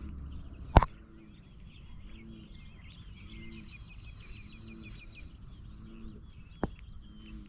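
Several small birds chirping and twittering steadily, with a sharp click about a second in and a smaller one near the end.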